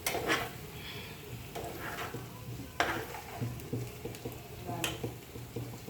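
A spoon stirring and scraping a frying onion-tomato masala in a pan of hot oil over a low sizzle, with a few sharp knocks of the spoon against the pan.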